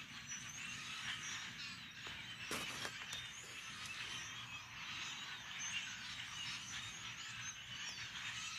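A flock of red-winged blackbirds calling, a continuous chatter of many overlapping chirps and short whistled notes making a lot of noise.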